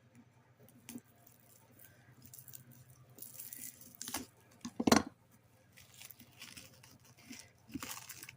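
Wrapping being rustled and torn open by hand, with one sharp knock about five seconds in.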